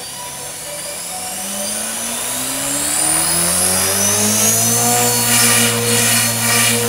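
Align T-Rex 450 DFC radio-controlled helicopter spooling up: the electric motor and rotor whine rises steadily in pitch for about four seconds, then holds steady at flying speed as the helicopter lifts off near the end.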